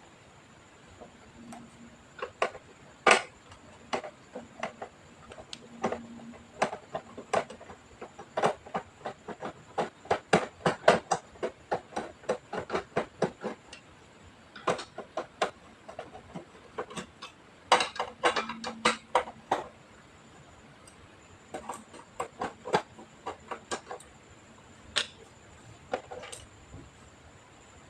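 Irregular sharp clicks and taps of small hard plastic and metal parts being handled as an all-in-one PC is taken apart, coming in quick runs with short pauses between them.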